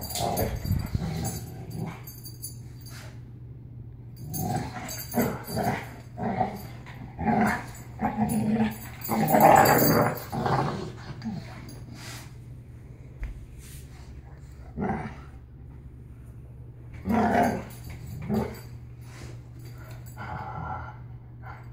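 Two dogs, a Caucasian shepherd and a boxer mix, growling in short repeated bouts as they play-fight. The bouts are loudest about halfway through.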